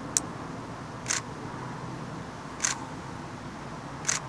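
Camera shutter clicking four times, a second or a second and a half apart, as still photos are taken.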